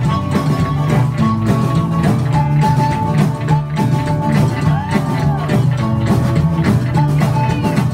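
Live rockabilly band playing: upright bass, acoustic and electric guitars, and a harmonica holding long notes over a steady beat.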